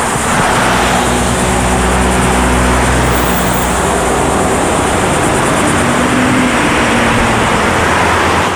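Steady rushing wind on the microphone of a bicycle-mounted camera while riding, with a low hum of road traffic under it.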